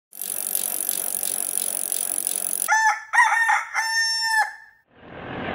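A steady hiss of background noise, then a rooster crowing about three seconds in: a few short pitched notes ending in one long held note. A low steady hum starts near the end.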